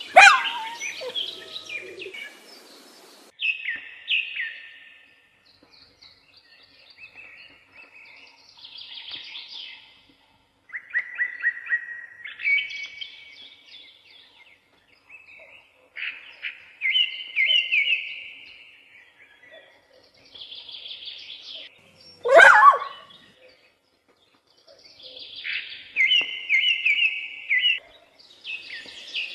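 Songbirds singing in repeated phrases of quick chirping notes, pausing for a second or two between phrases. A sudden loud sharp sound cuts in about two-thirds of the way through.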